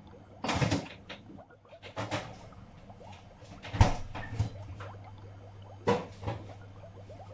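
Refrigerator doors being opened and shut and things handled inside: a string of short knocks, rustles and thumps, the sharpest and heaviest about four seconds in, over a low steady hum.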